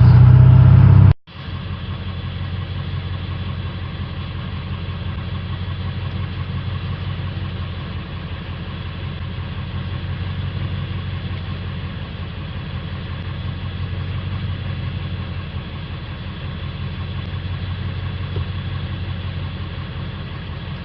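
Ford 7.3 L Power Stroke V8 turbodiesel idling steadily, with a new fuel injector fitted and the air purged from the fuel system; it is running smoothly. A louder sound cuts off about a second in, before the idle.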